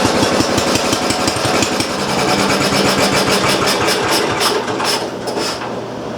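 Briggs & Stratton Model Q single-cylinder engine running with a fast, even firing beat, then shut off with its stop button: the beats spread apart and it coasts to a stop near the end.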